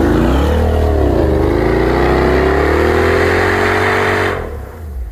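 Land Rover Discovery's engine revving hard under load: the pitch dips about a second in, climbs back up and holds, then drops off suddenly about four seconds in.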